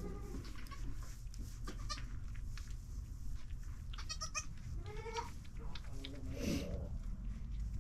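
Goats bleating, a doe and her newborn kids: several short calls, a high-pitched one about four seconds in, a rising one about five seconds in and a lower, deeper one near six and a half seconds, over a steady low hum.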